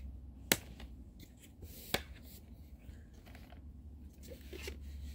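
Metal steelbook cases being handled in a box set's foam insert: two sharp clicks about a second and a half apart, with soft rubbing and rustling between them.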